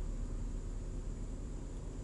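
Steady low hum with a faint hiss inside a parked Honda N-BOX's cabin.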